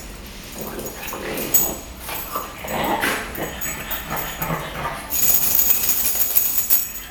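French bulldog whining and making short vocal noises, with a louder scratchy noise about five seconds in that lasts nearly two seconds.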